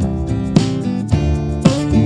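Background music with guitar and a steady beat, about two beats a second.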